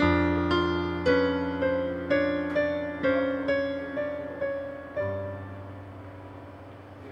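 Background piano music: a slow melody of single notes, about two a second, over held low notes, ending on a chord about five seconds in that fades away.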